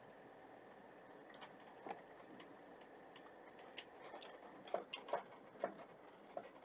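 Faint steady road noise inside a moving motorhome's cab, with a few irregular small clicks and rattles, several close together about five seconds in.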